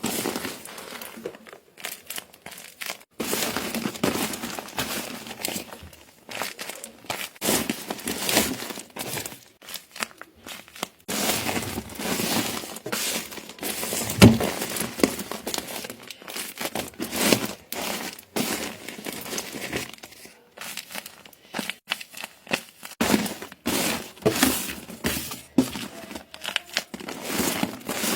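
Paper crinkling and rustling in irregular bursts as a paper squishy is handled, with one sharper knock about fourteen seconds in.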